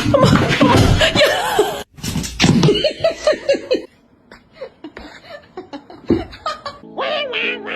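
People laughing in a run of short bursts, after a noisy stretch that cuts off abruptly about two seconds in.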